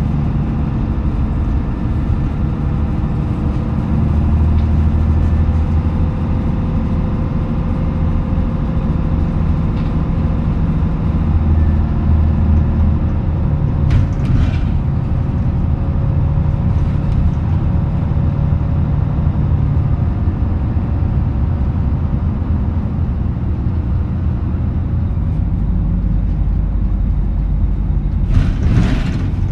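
KK-MJ26HF small bus's diesel engine and drivetrain running while under way, heard from inside the cabin, the engine note rising and falling with changes of speed. A brief hiss comes about halfway through and another near the end.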